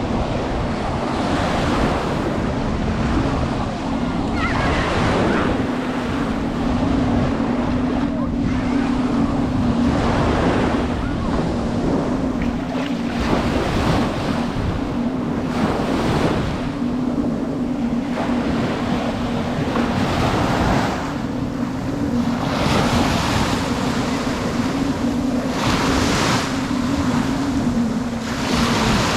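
Small ocean waves washing and breaking on the beach in repeated swells every second or two, with wind buffeting the microphone. A steady low hum runs underneath.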